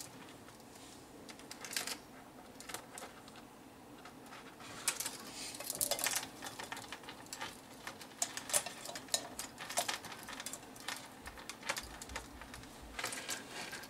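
Handling noise from logic-analyzer probe leads and their small test-hook grabber clips: irregular light clicks and rattles of small plastic and metal parts, coming in scattered bunches.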